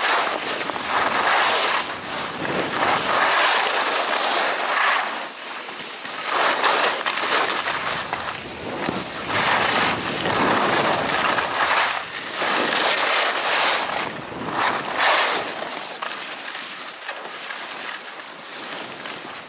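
Skis carving down a run on soft snow, a hissing scrape that swells and fades every couple of seconds with each turn, mixed with wind rushing over the microphone.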